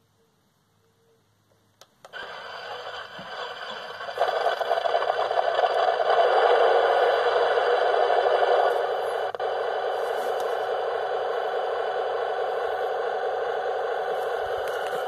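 Heng Long RC tank's built-in sound unit playing an engine sound through its small speaker: it switches on about two seconds in, gets louder a couple of seconds later, then runs on steadily with a tinny, high-pitched tone and no low rumble.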